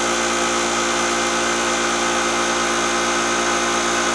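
Vevor 6.3-gallon twin-cylinder air compressor running steadily as it pumps up its tank, a smooth drone rather than a hammering.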